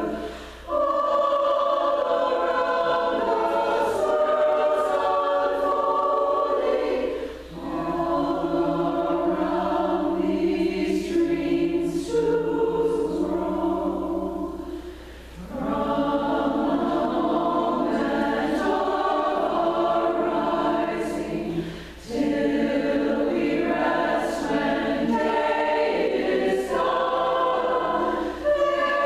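Women's choir singing an a cappella hymn in four parts (SSAA), in long phrases with a brief breath between them about every seven seconds.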